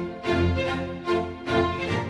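Background music with bowed strings and a steady beat.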